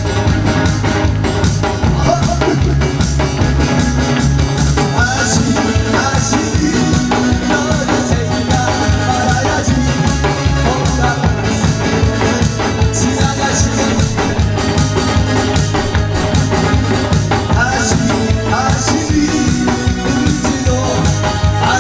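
Backing music with a steady drum beat and bass, an instrumental stretch without words.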